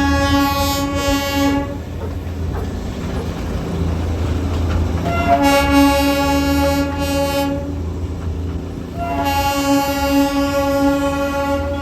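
Darjeeling Himalayan Railway toy train sounding its horn in three long blasts, the first at the start, the second about five seconds in and the last near the end, over the low rumble of the moving train.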